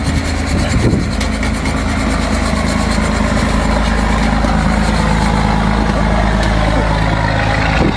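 A hacksaw rasping back and forth through the hard shell of a giant lobster's claw, over a steady low engine hum.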